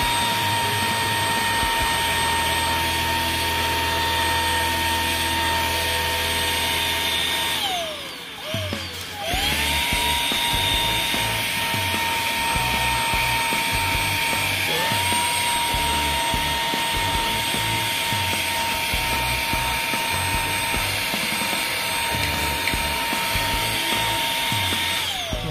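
Xiaomi Dreame XR cordless stick vacuum's motor running with a steady high whine as it sucks dust off an air-conditioner filter through the brush nozzle. About eight seconds in it winds down and stops; a second later it starts up again, and it winds down again at the end.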